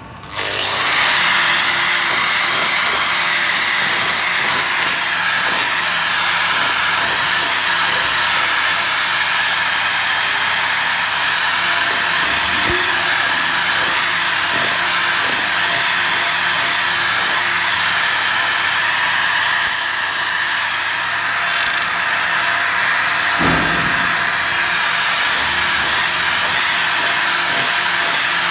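Handheld angle grinder with a hoof-trimming disc running steadily as it grinds down a dairy cow's hoof. It is a steady whine that starts right at the beginning and holds unchanged, with one brief low knock about 23 seconds in.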